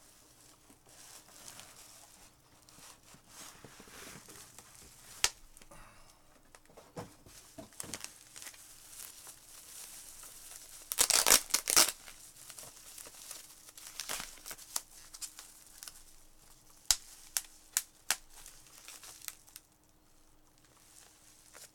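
A box being opened and its packing handled: tape and packaging tearing and crinkling, with scattered sharp clicks. There is a loud burst of tearing about eleven seconds in and a few sharp clicks near the end.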